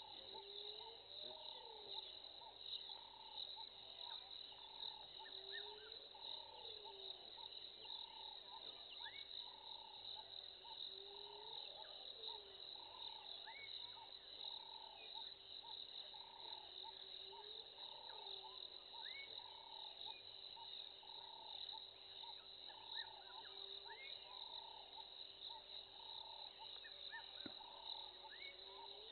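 Faint night chorus of crickets: a steady high trilling, a quicker chirping about twice a second, and a lower call that rises and falls every five or six seconds, over a faint steady hum. There is a single click near the end.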